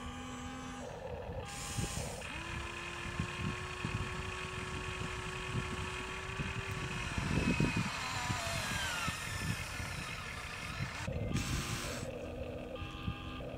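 Electric gear motors of a Huina radio-controlled excavator whining as the boom, arm and bucket move, starting and stopping abruptly, with a long steady whine in the middle and a falling whine after it. Short knocks and scraping of the bucket in sand run underneath.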